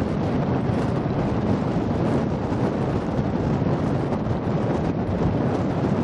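Wind buffeting the microphone: a steady, rushing rumble with no distinct machine or voice standing out.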